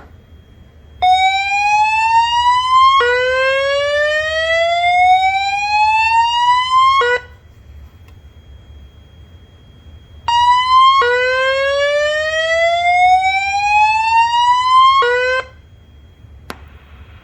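Voice evacuation fire alarm (Fire-Lite FireCommand 25/50X) sounding its whoop alert tone through speaker strobes, the signal announcing a reported fire. There are two bursts about three seconds apart, each a short rising sweep and then a longer one climbing steadily in pitch for about four seconds.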